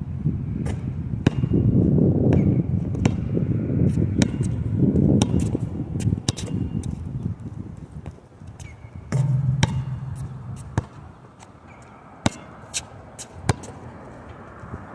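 A basketball being dribbled and bounced on an outdoor court: sharp, irregular bangs every half second to a second. Wind buffets the microphone in a heavy low rumble that eases off about halfway through, and a brief low hum comes in about nine seconds in.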